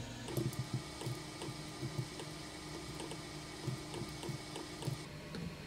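Quiet room tone with a faint steady hum that stops about five seconds in, and scattered soft computer-mouse clicks.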